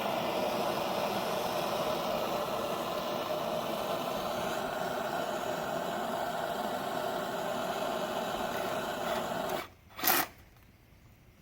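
Handheld torch flame hissing steadily while heating solder onto a radiator leak, cut off abruptly near the end, followed by one brief burst of noise.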